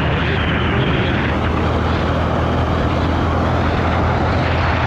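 Steady vehicle running noise while travelling along a road, with a constant low rumble under a rushing, wind-like noise that does not change.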